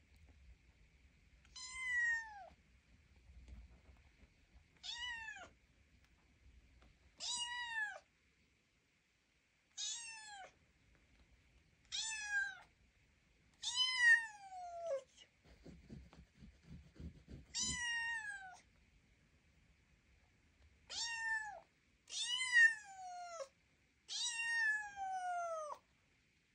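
Bengal kitten meowing over and over: about ten short, high calls spaced a couple of seconds apart, each falling in pitch.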